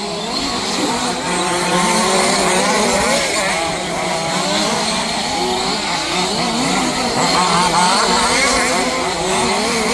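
Several 1/5-scale two-stroke petrol RC off-road buggies racing, their engines revving up and down against each other in a shifting, overlapping buzz.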